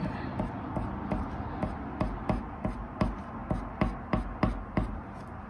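Black colored pencil scratching on paper in short, quick strokes, about three a second.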